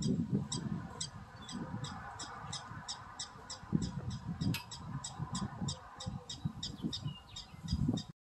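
Black-tailed prairie dog giving repeated short alarm barks, about three a second, over wind buffeting the microphone.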